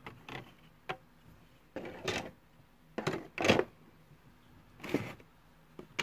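Plastic LEGO bricks and plates being handled and moved, giving a handful of separate clicks and short clattering rubs, the loudest about three and a half seconds in.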